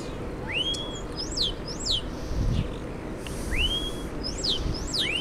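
European starling whistling: a whistle that slides up and levels off, followed by a few sharp whistles that sweep down. The phrase comes twice.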